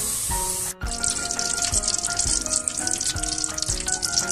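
Water pouring from a steel tumbler onto sugar in a steel pot, a splashing hiss that stops abruptly about a second in. Background music plays throughout, and a crackling hiss runs under it after the pour.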